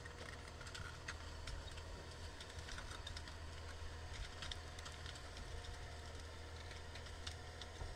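Forestry machine's diesel engine running as a steady low hum, with scattered light clicks and snaps throughout.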